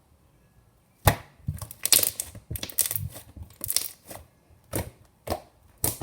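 Fluffy slime being squeezed and worked by hand, its trapped air pockets popping and crackling in a run of sharp clicks that start about a second in, roughly two a second.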